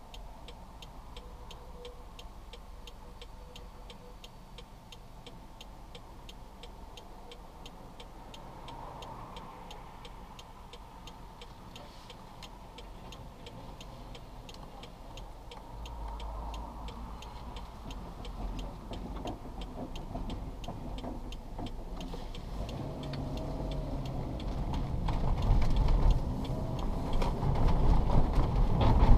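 Inside a Subaru Forester's cabin, a turn-signal indicator ticks steadily while the flat-four boxer engine runs quietly. From about halfway through, the engine and road noise grow louder as the car pulls away and accelerates, and the ticking stops.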